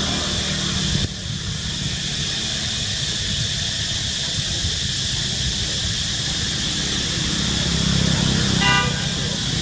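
Steady outdoor background: an even high hiss over a low rumble that swells near the end. A short pitched toot comes just before the end.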